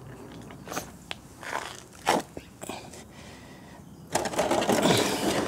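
A few light knocks and handling clicks, then about four seconds in a sudden loud, continuous rushing, spluttering noise begins as old water and coolant are forced out of the car's cooling system.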